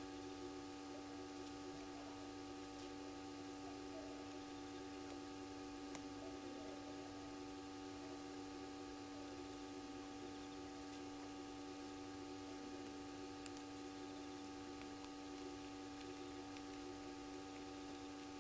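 Steady electrical hum at low level, several fixed tones held without change, over faint background hiss.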